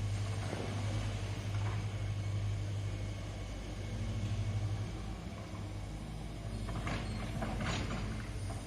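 Diesel engine of heavy construction machinery running at a steady low speed, with a brief cluster of scraping or clattering noises about seven seconds in.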